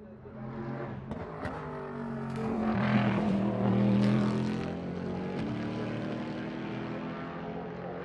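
A race car's engine at speed, growing louder as it approaches, loudest about three to four seconds in as it passes, then fading as it heads away, its pitch shifting as it goes by.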